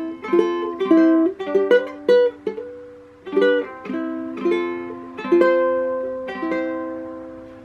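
Stagg ukulele strummed by hand through a short run of chords, each strum ringing on into the next. The last chord, about six seconds in, is left to ring and fade away.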